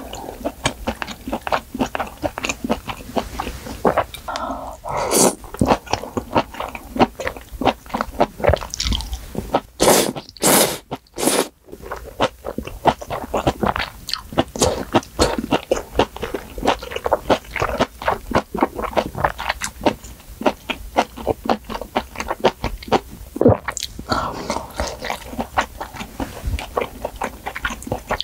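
Close-miked eating of a spicy malatang hot pot of noodles, meat and vegetables: wet chewing with many quick mouth clicks, and a few louder slurps, the loudest about ten to eleven seconds in.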